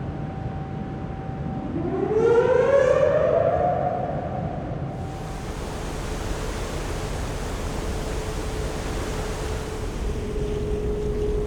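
A 12,000 hp ferry's exhaust fan spinning up in the lower hold at the stern, a rising whine about two seconds in over the hum of the idling engines. About five seconds in it cuts to bow wash rushing along the hull, with a steady engine whine behind it.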